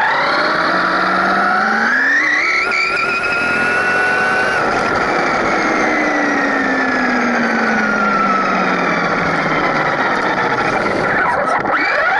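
Brushless electric motor and drivetrain of a Traxxas Rustler VXL RC truck whining, heard from on board. The pitch rises as the truck accelerates over the first few seconds, holds, then falls slowly as it eases off. It dips near the end and climbs again as the truck speeds back up, over steady road noise from the tyres on rough asphalt.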